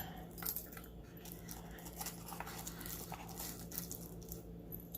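Faint handling of jewelry and its packaging: scattered small clicks and light rustles over a low steady hum.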